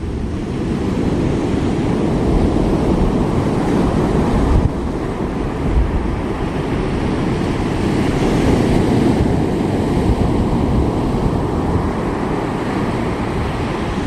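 Ocean surf breaking and washing in, a steady rushing that swells and eases, with wind rumbling on the microphone.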